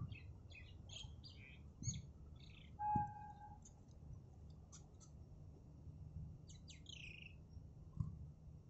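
Small birds chirping in short, quick calls over a low rumble, with a brief steady tone about three seconds in.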